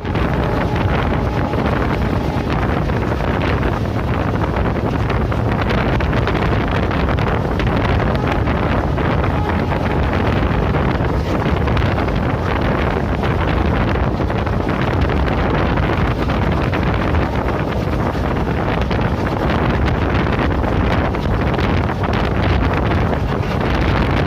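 Wind rushing over the microphone over the steady rumble of a passenger train running at speed along the track.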